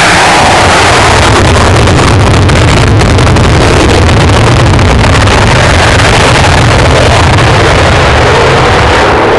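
English Electric Lightning F6's twin Rolls-Royce Avon turbojets running at high power, a steady, very loud jet roar that overloads the recording.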